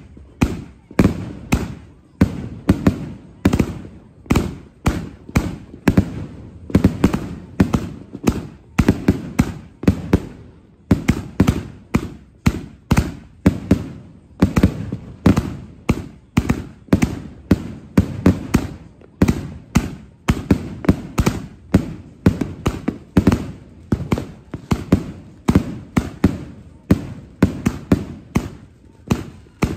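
A 72-shot consumer firework cake firing shot after shot in steady succession, about two loud bangs a second, each dying away quickly before the next.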